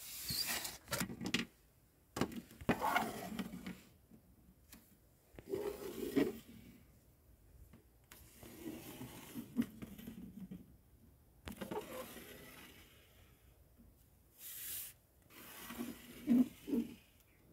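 Plastic toys being handled and moved about on a shelf: intermittent scraping and rubbing with a few light knocks, separated by quiet gaps.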